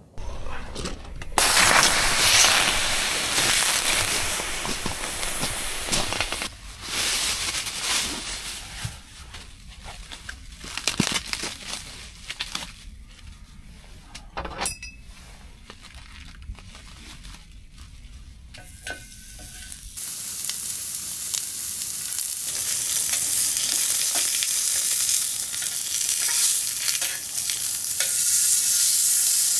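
Thin slices of meat sizzling on the grill plate of a charcoal-fired tabletop barbecue grill, a steady hiss that grows louder over the last third. Before that, a loud hissing rush in the first few seconds, then scattered clicks and knocks.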